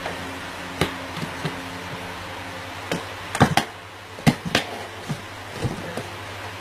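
A dozen or so sharp knocks and clatters at irregular intervals, the loudest in the middle, over a steady low hum.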